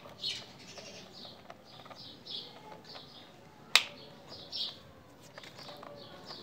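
Small birds chirping over and over in the background, with one sharp plastic click a little under four seconds in as a toy loader is set down on a toy truck's load of plastic vehicles.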